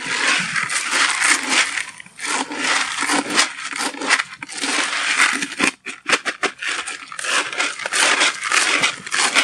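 Carp bait of pellets and particles being stirred with a spoon in a plastic bucket: an irregular rattling, crunching clatter of hard grains, with a few short breaks.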